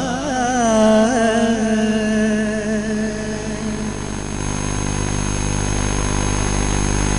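Qawwali music: a sung phrase wavers and trails off in the first second or so, then a steady held drone chord goes on with a low hum beneath it.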